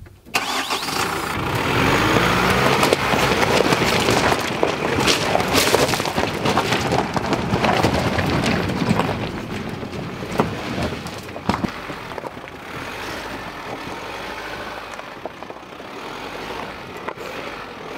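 Nissan Navara pickup driving over a loose-rock track: tyres crunching and grinding on the stones, with sharp knocks of stones struck, over the 2.3-litre turbodiesel running underneath. Loudest for the first two-thirds, easing off near the end.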